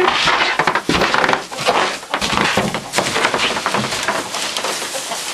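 Continuous rustling and crunching with many small cracks: footsteps on a floor strewn with litter and wood shavings, with the camera being jostled as it is carried through a doorway.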